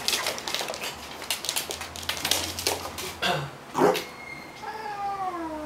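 Welsh Corgi puppy and a cat play-fighting on a wooden floor: rapid scrabbling of paws and claws with scattered knocks, and a long falling cry near the end.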